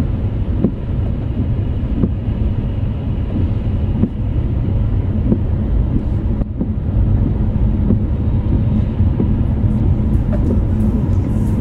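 Car cabin road and engine noise while driving: a steady low rumble, with faint regular ticks as the windscreen wipers sweep spray off the glass.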